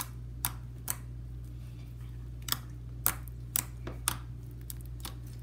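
White slime with small packing peanuts mixed in being worked by hand, giving a string of irregular sharp clicks.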